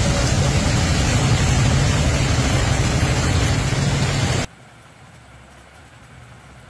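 Heavy rain pouring down on a flooded road, a dense steady hiss with a low rumble under it. About four and a half seconds in it cuts off abruptly to a much quieter steady rush.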